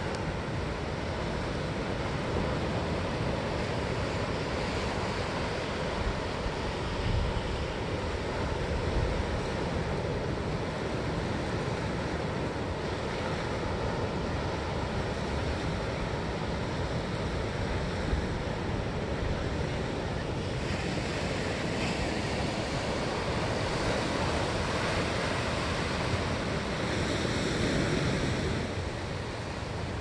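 Pacific Ocean surf breaking and washing up the shore, a continuous rush of water that swells louder with a breaking wave near the end.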